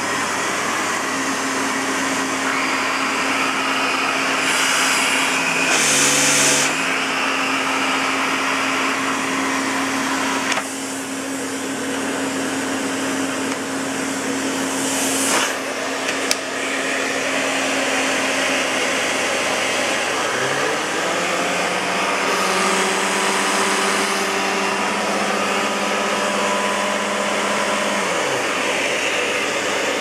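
Lux Intelligence canister vacuum cleaner running steadily, its hum shifting a few times, with two short clicks about halfway through. A second, lower hum winds up about two-thirds of the way in and winds down near the end.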